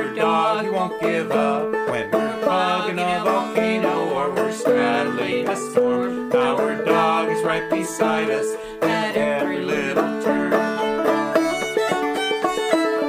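Instrumental music played on plucked string instruments, with no singing.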